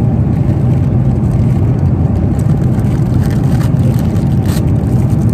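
Airliner cabin noise: a steady, loud low rumble of engines and airflow, with a few light plastic crinkles around the middle.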